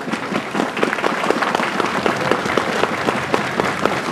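Crowd applauding, many hands clapping steadily, in response to a welcome speech.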